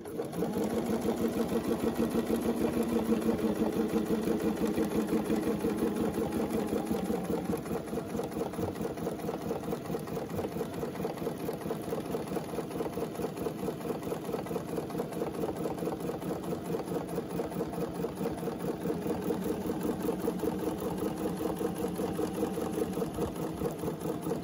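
Domestic Bernina sewing machine stitching continuously in free-motion ruler quilting, its needle strokes a fast, even rhythm, a little louder for the first several seconds.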